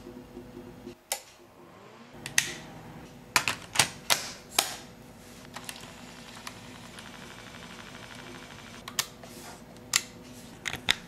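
Sharp mechanical clicks of the keys and switches on a Sony Walkman cassette recorder being pressed: about a dozen clicks, a quick cluster in the first half and a few more near the end, over a low steady hum.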